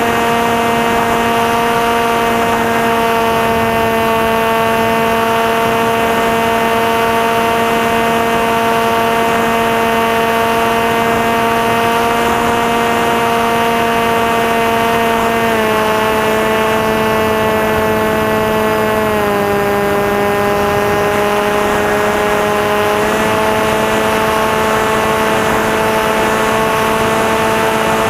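Electric motor and propeller of a Maxi Swift FPV flying wing running steadily in flight: a constant pitched hum over a rushing hiss. Past the middle the motor speed steps down twice, then picks up a little.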